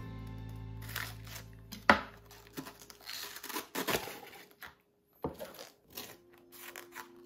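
Kitchen food-preparation handling sounds: irregular rustling and tearing noises with a few sharp knocks, the loudest about two seconds in. Background music drops out at the start and comes back near the end.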